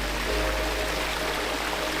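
Background music with several held notes over the steady rush of a pond waterfall.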